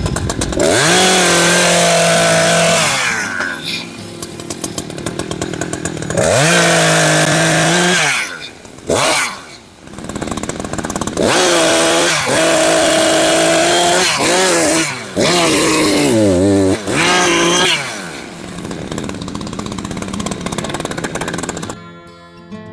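Echo two-stroke chainsaw repeatedly revved up to full throttle for cuts through a fallen tree, each cut held for one to two seconds before the engine drops back toward idle. Guitar music comes in near the end.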